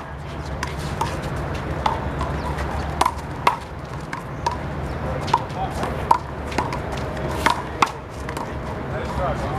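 A one-wall handball rally: the big blue rubber ball is slapped by hand and smacks off the wall, a dozen or so sharp pops spaced about half a second to a second apart, over a steady low rumble.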